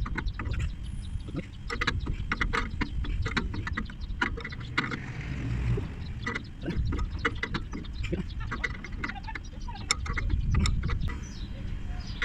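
Hand ratchet wrench clicking in quick runs with short pauses as a bolt on the truck's underside is turned.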